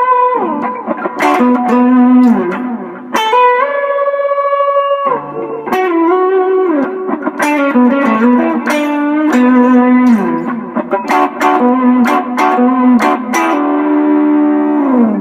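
Carvin AE185 semi-hollow electric guitar on its middle pickup position, played through a Pigtronix Aria Disnortion overdrive pedal into a Peavey Backstage 50 solid-state amp: a phrase of picked single notes and held notes, several sliding down in pitch.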